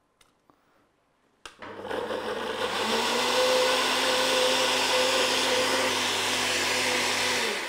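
Glass-jar countertop blender running, puréeing cooked beans in their cooking liquid with butter and wakame. The motor starts about a second and a half in, rises in pitch as it comes up to speed, runs steadily, and winds down just before the end.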